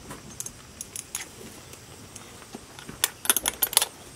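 Metal snaps and rings of a buggy horse's leather harness clinking as the reins are clipped together and run through: light scattered clicks, then a quick run of sharp jingles about three seconds in.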